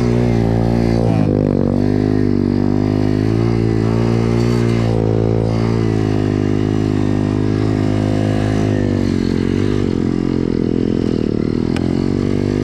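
BSE MX 125 pit bike's single-cylinder engine running under load while riding, its pitch rising and falling with the throttle, with the revs dipping briefly near the end.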